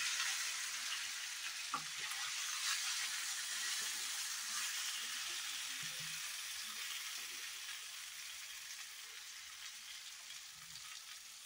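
Lotus stem and potato pieces coated in rice-paste batter sizzling as they are scraped into hot oil in a kadhai. The sizzle is steady and slowly dies down, with a light knock of the steel bowl or spoon about two seconds in.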